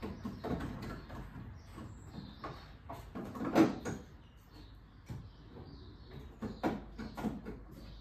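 Irregular knocks and clanks of sheet metal being worked by hand on a car's wheel arch. One loud bang comes about three and a half seconds in, and a quick run of sharp knocks comes near the end.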